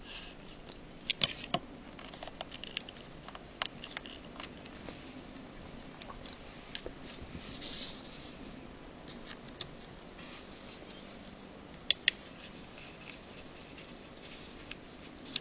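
Scattered small clicks and light taps of tools and tiny parts being handled on an iPhone 5's opened case, with a brief scrape about eight seconds in and two sharp clicks about twelve seconds in.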